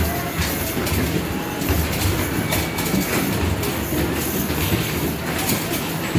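Arcade basketball machine in play: basketballs knocking against the backboard and rim and rolling back down the ball-return ramp. The result is a continuous low rumble broken by frequent sharp knocks.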